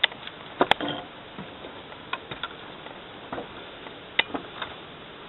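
Footsteps and knocks on a wooden balcony deck and steps: irregular sharp clicks, the loudest pair just under a second in.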